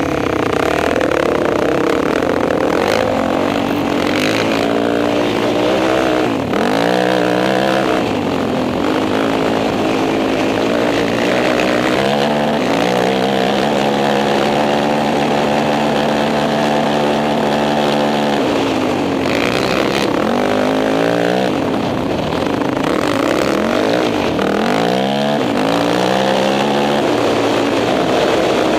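Sport quad engine under hard throttle, heard from on board. Its pitch climbs and drops again and again as the rider throttles and shifts, with a long steady high-rev stretch around the middle. Wind buffets the microphone.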